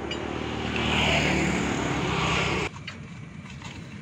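Highway traffic: a passing vehicle's engine and tyre noise swells and holds, then cuts off abruptly about two-thirds of the way through, leaving a quieter background.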